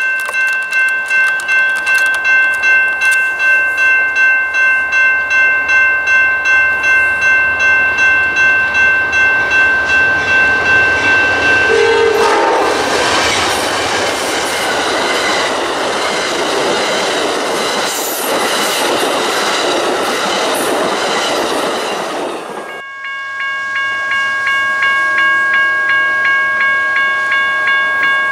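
Railroad grade-crossing warning bell ringing at about two strokes a second. About twelve seconds in, an Amtrak passenger train passes with a loud rush of wheel and rail noise for about ten seconds, drowning the bell. Near the end the sound changes abruptly to another crossing bell with a different pitch, ringing at the same pace.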